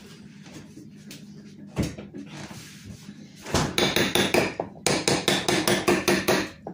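A couple of dull thumps, then from about halfway a rapid run of sharp knocks, several a second, with a slight metallic ring: a spatula knocking against a metal mixing bowl of whipped cream.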